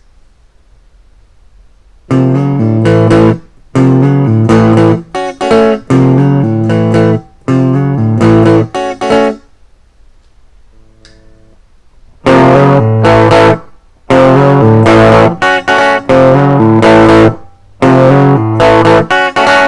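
Electric guitar through a Marshall amplifier playing strummed chords in short bursts of about a second each, with brief pauses, in two runs. A faint single note sounds in the middle. A low hum sits under the playing and is plain in the gaps: the background hum the recording setup is being tested for.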